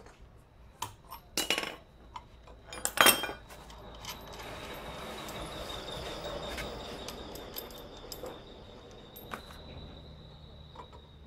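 Metal tools clinking and knocking on a Honda Vario scooter's CVT pulley assembly as it is worked loose by hand with a breaker bar, the loudest a couple of sharp knocks about three seconds in. Then a steady metallic noise with a thin high tone over it lasts to the end.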